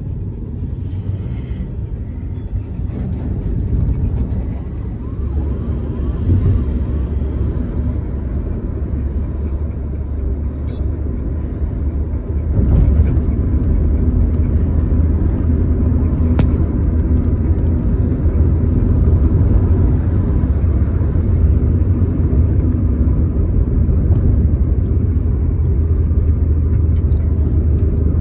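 Moving car heard from inside the cabin: a steady low rumble of engine and road noise, growing louder a little under halfway through.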